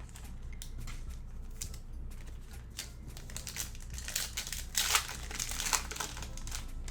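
Plastic trading-card pack wrapper crinkling and being torn open by hand, with a dense burst of crackling about four to six seconds in.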